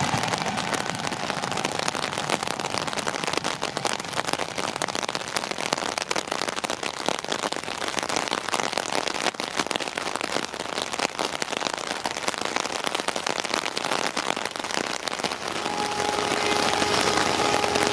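Heavy monsoon rain falling close to the microphone, a dense crackle of drops. Near the end a distant train horn sounds, a steady two-note tone.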